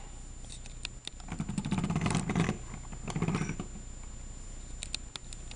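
A small plastic toy figure is handled and moved on a hard floor: a few light clicks and two short rasping scrapes.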